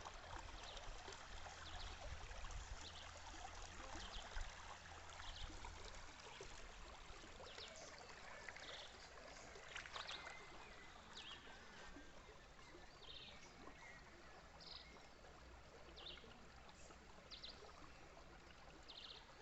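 Stream water running and trickling steadily, with short high-pitched sounds recurring every second or so.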